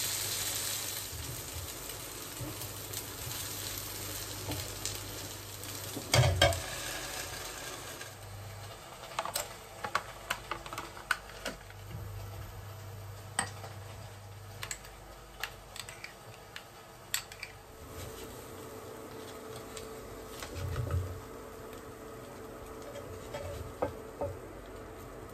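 Zucchini pancakes sizzling in a frying pan, with a spatula scraping and a loud knock about six seconds in. Then a run of light clicks and taps as a spoon scoops yogurt from a plastic tub into a small bowl. Near the end come a few clicks of tongs turning asparagus in the pan.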